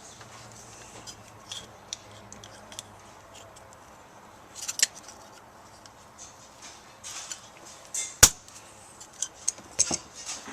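Light rustling and small clicks of a wiring harness being handled, then one sharp snip about eight seconds in as cutters go through the heavy red battery wire loop.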